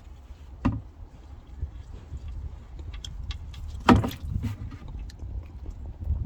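Two sharp knocks of hand tools or parts being handled under the car, about three seconds apart, the second louder, with small clicks and clatter around it over a low rumble.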